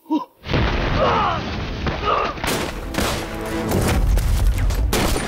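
Heavy battle gunfire, a rapid fusillade of rifle shots, breaks out about half a second in and runs on densely. A short shout comes just before it, and there are yells in the middle.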